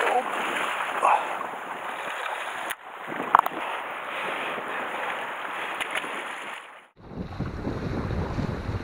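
Small sea waves washing against seaweed-covered rocks, with one brief sharp sound a little over three seconds in; after a cut near the end, wind buffets the microphone with a low rumble.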